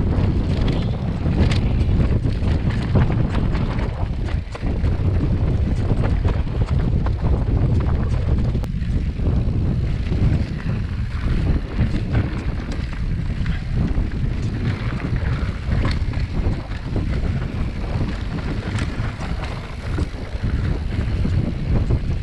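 Wind buffeting the microphone, a loud low rumble, with scattered sharp clicks and rattles.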